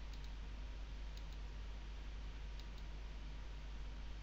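A few faint, scattered computer-mouse clicks over a steady low hum and hiss of the recording.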